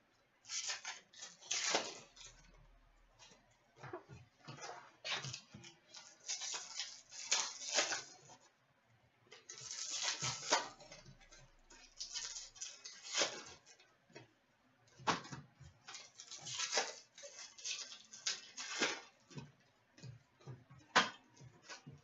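Crinkling and rustling of trading card packs and packaging being handled and opened, in irregular bursts with sharp clicks and short pauses.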